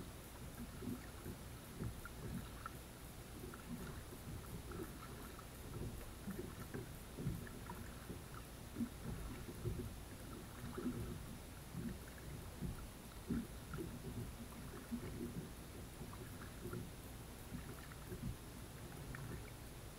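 Water lapping and dripping against a kayak hull: soft, irregular small splashes and knocks.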